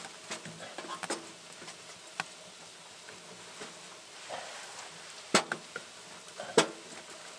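Small metal tent wood stove being loaded with split wood: sharp knocks and clunks of wood against the firebox, a few light ones and two loud ones near the end.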